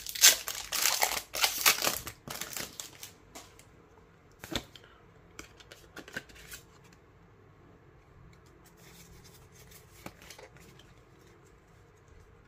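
Foil wrapper of a Pokémon trading card booster pack being torn open and crinkled, loudest in the first two seconds. This is followed by scattered light clicks and rustles of the cards being handled.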